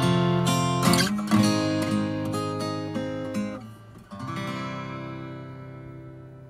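Background music: acoustic guitar strumming chords, with a last chord about four seconds in that rings out and fades away.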